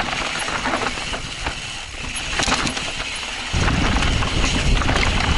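Intense Tracer mountain bike descending a rocky trail: tyres crunching over loose dirt and rocks, with constant clicking and rattling from the bike. A heavier low rumble sets in about three and a half seconds in.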